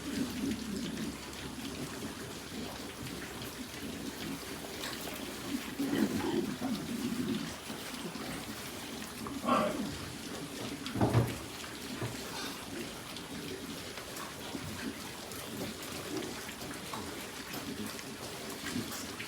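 Steady splashing or running water, broken by a few short louder sounds about six, nine and a half and eleven seconds in.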